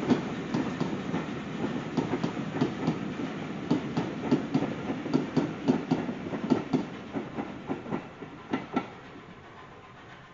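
Wheels of heritage railway coaches clicking over rail joints as the train passes and draws away, with a steady rumble underneath. The clatter fades and the clicks stop about nine seconds in.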